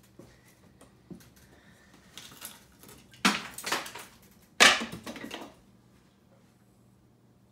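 Two loud clattering crashes about a second and a half apart, each rattling on briefly: demolition debris being handled or dropped.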